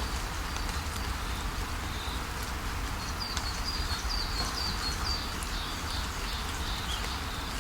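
Waterfall rushing steadily with a low rumble, while a bird gives a quick series of short, high, falling chirps through the middle.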